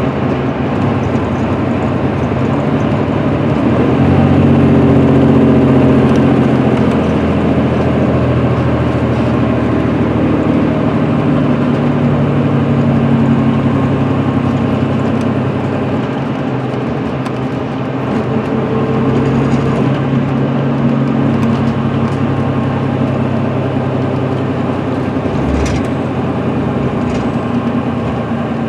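An MCI D4500CL coach with a Cummins ISM diesel and Allison automatic transmission cruising at highway speed, heard from inside the passenger cabin: a steady engine drone over loud tyre and road noise. The engine note shifts slightly in places. A single brief thump comes near the end.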